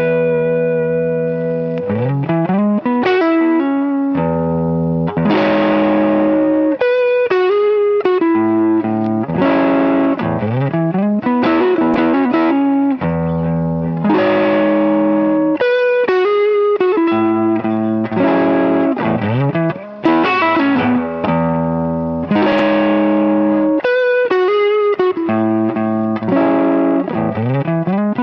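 Electric guitar playing blues licks through a mildly overdriven amp tone, with held notes, string bends that slide up in pitch, and quick note runs.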